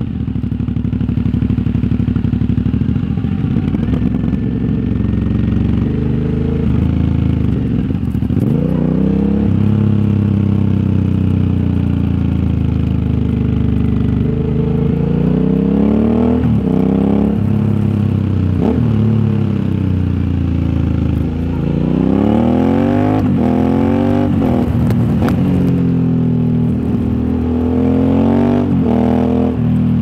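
A 2021 Aprilia Shiver 900's 900 cc V-twin running through an aftermarket RoadsItalia exhaust on the move. The engine note climbs and falls as the bike accelerates and backs off, with several quick rising runs in the second half, each cut short by a sudden drop at a gear change.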